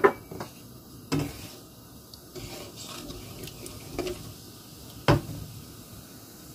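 Wooden spatula stirring panch phoron seeds in hot mustard oil in a nonstick frying pan. It knocks against the pan a few times, the loudest about five seconds in, over a faint sizzle of the seeds frying.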